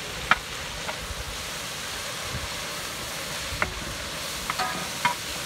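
Metal slotted spatula stirring shallots, dried red chillies and whole spices roasting in a large aluminium pan, clinking against the pan a few times over a steady sizzling hiss.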